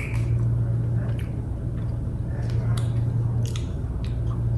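A person chewing a bite of an almond chocolate bar, with scattered small mouth clicks, over a steady low hum.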